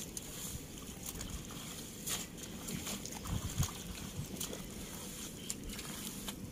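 Hands groping and squelching through wet mud and shallow water, with scattered small splashes, the most noticeable a little after two seconds and about three and a half seconds in. A steady low rumble of wind on the microphone lies under it.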